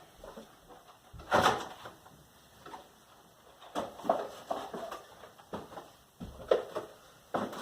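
A string of irregular knocks and bumps of objects being handled and set down, the loudest about a second and a half in.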